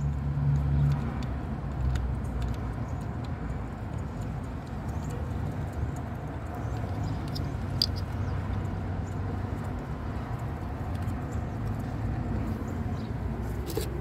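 Steady low rumble in the background, with a few faint, sparse metallic clicks of hand tools as the ignition coil's hold-down bolt is fitted on the engine.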